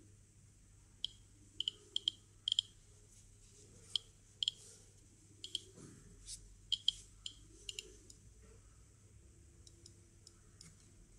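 Geiger-counter dosimeter's built-in speaker giving short, sharp clicks at uneven intervals, roughly two a second, each click one counted particle of background radiation.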